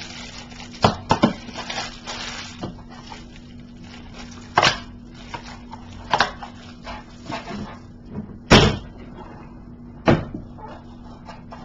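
Plastic DVD case being handled on a desk: a string of separate sharp clicks and knocks, the loudest about eight and a half seconds in, over a faint steady hum.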